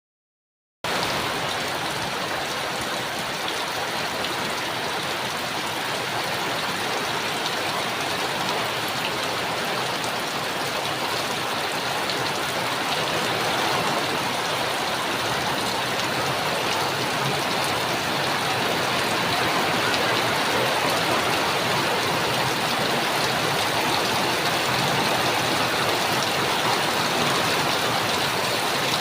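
Steady rain from a typhoon, falling as an even, unbroken hiss that begins about a second in.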